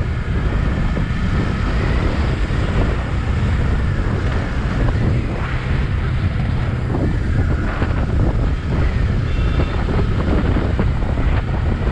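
Wind buffeting the microphone of a Bajaj Pulsar NS200 motorcycle riding at about 40 km/h. The bike's single-cylinder engine runs steadily underneath.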